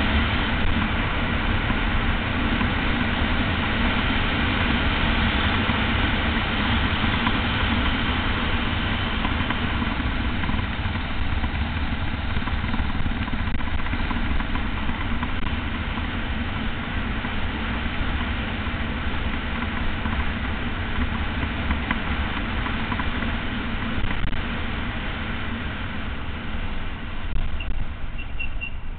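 Wind rushing over the microphone of a camera mounted on a bicycle descending a mountain road at speed: a steady, loud, deep rumble with no breaks.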